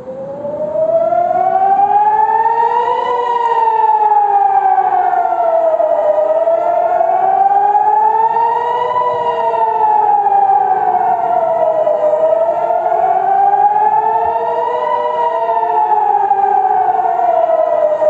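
Civil-defence warning sirens wailing, starting up together and rising and falling slowly, about three seconds up and three down, two sirens out of step so their pitches cross. It is the rising-and-falling alert for incoming rocket fire.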